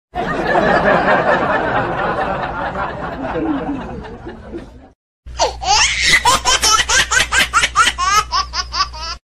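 Laughter sound effects: a burst of laughter that fades away over about five seconds, then after a brief cut a loud, rhythmic laugh of about three 'ha's a second.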